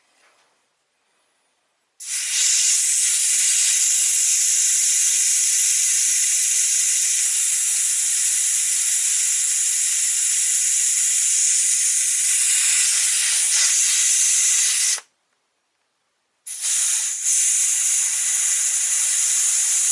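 Compressed air hissing out of a tyre as it is deflated, a loud steady hiss. It runs for about thirteen seconds, stops abruptly, then starts again a second and a half later.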